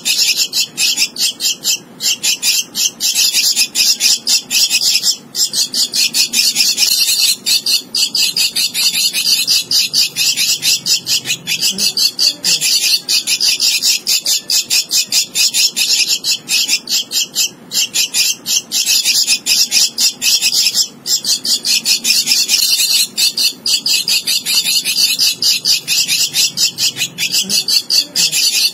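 Javan myna nestling's begging calls: a loud, continuous, rapid high-pitched raspy chatter while it gapes for food, broken by brief pauses every few seconds.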